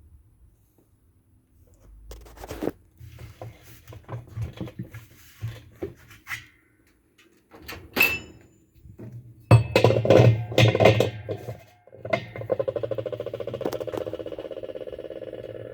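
Top-load washer parts being handled and fitted, with scattered knocks and clatter. About twelve seconds in, a fast, even run of clicks starts and slowly fades.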